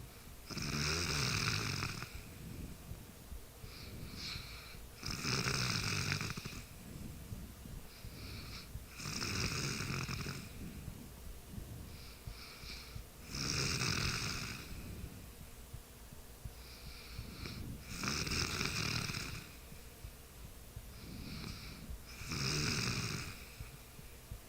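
Sleeping person snoring: six loud snores about four seconds apart, each lasting a second or so, with a fainter, shorter breath sound just before each.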